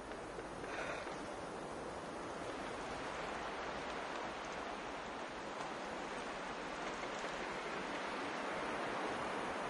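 Shallow stream running over gravel, a steady rushing of water that grows gradually louder as it fades in.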